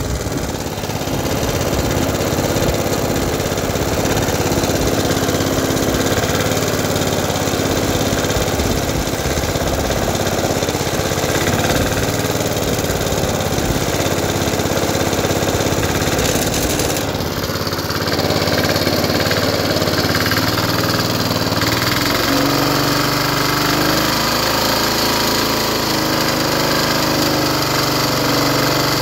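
The small petrol engine of a 1976 Rover Prince 19 rotary lawn mower runs steadily after a cold start from long storage. Its note shifts about two thirds of the way in, then holds steady. The engine is worn and smoky, and the owner puts that down to piston rings that are past it.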